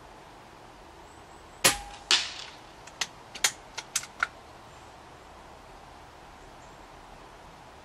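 A Daystate Huntsman Regal .22 pre-charged pneumatic air rifle fires once with a sharp crack. About half a second later comes a second sharp report with a short ring, the pellet striking the 50-metre target, which sounds like a stone thrown at a piece of wood. A quick run of softer metallic clicks follows as the bolt is cycled to chamber the next pellet from the magazine.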